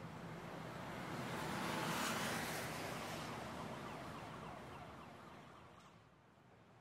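City street traffic noise that swells to a peak about two seconds in and then fades away, like a vehicle passing.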